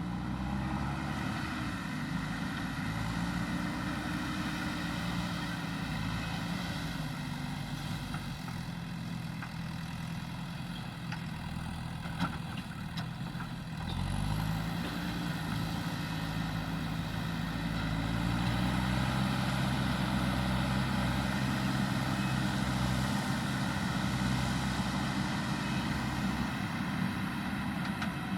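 Diesel engine of a JCB earth-moving machine running under work. It revs up near the start, eases off a few seconds later, then revs up again about halfway and climbs higher a few seconds after.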